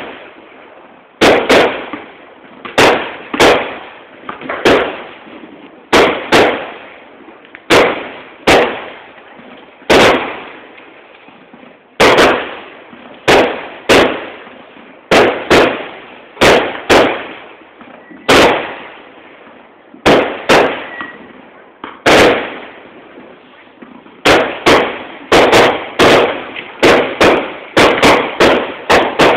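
Aerial fireworks shells bursting, one sharp bang after another about every one to two seconds, each with a fading echo. The bangs come faster near the end, in a rapid string.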